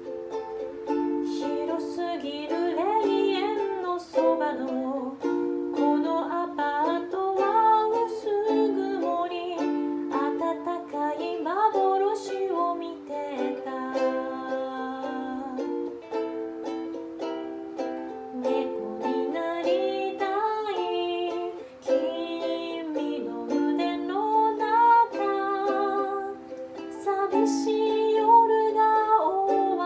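Ukulele strummed in chords, with a voice singing the melody over it.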